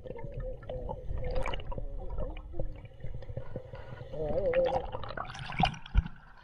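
Water heard from underwater: muffled gurgling and sloshing over a low rumble, with scattered clicks. A couple of sharp knocks near the end as the camera breaks the surface.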